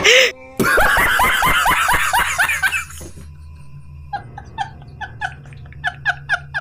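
A man laughing hard: loud rapid bursts of laughter for the first few seconds, then a quieter, high, breathless laugh in short even pulses, about four a second.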